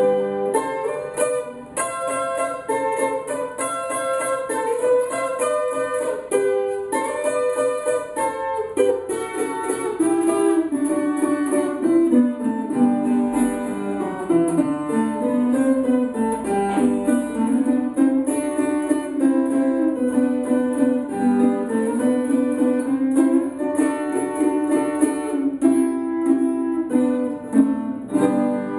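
Acoustic guitar with doubled strings played solo, a picked melody of stepping notes over chords, with no singing.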